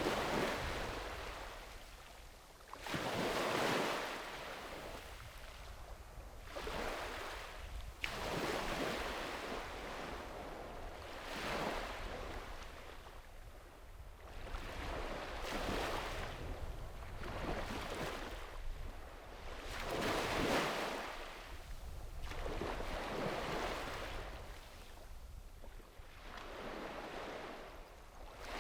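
Small sea waves breaking and washing up a sandy beach, one surge every few seconds, with a low wind rumble on the microphone.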